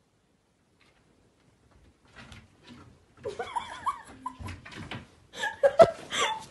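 Domestic cat meowing over and over in short calls, beginning about three seconds in, with a sharp knock a little before the end.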